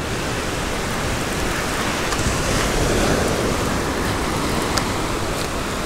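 Small ocean waves breaking on a sandy beach: a steady rush of surf that swells about halfway through.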